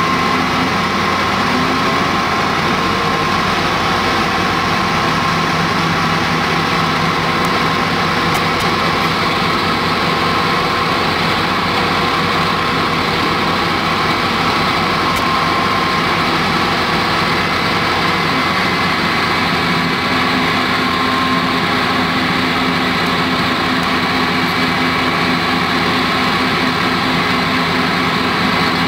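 Diesel engines of fire engines running steadily at high revs to drive their water pumps, a continuous drone with a few steady tones.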